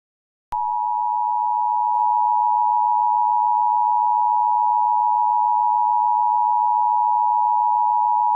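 Emergency alert attention tone: one steady electronic tone that starts about half a second in, gets slightly louder about two seconds in and holds, signalling that an alert message follows.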